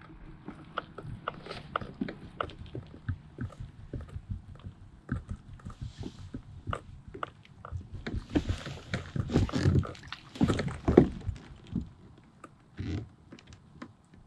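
A small catfish is fought to the side of a kayak and brought aboard. A run of small, irregular clicks and knocks comes first. Then there is louder splashing and thrashing from about eight to eleven seconds in, as the fish reaches the surface and is lifted out.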